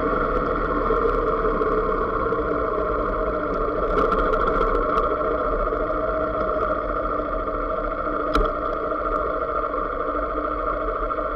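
Motorcycle engine running at a steady speed, heard from the bike itself, with a short sharp knock about eight seconds in.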